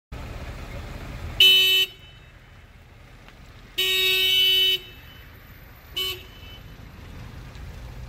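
Car horn honking three times: a short honk, a longer one of about a second, then a quick tap. Under it runs a low, steady vehicle rumble.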